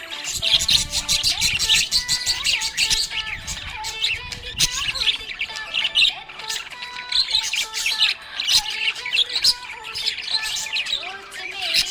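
Small pet parrots chirping and chattering without pause, a dense run of fast, high, overlapping chirps and squawks.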